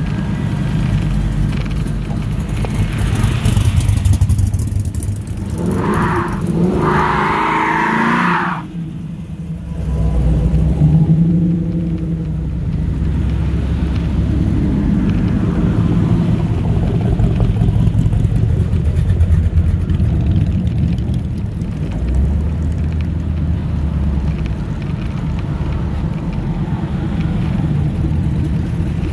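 Classic cars' engines rumbling as they drive slowly past one after another, each rising and fading as it goes by. About six to eight seconds in a brief higher-pitched sound comes twice over the engines.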